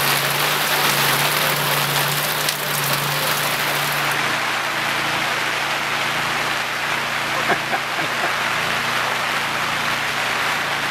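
Steady hiss of rain falling on a fabric tent canopy, with two light knocks a little past the middle.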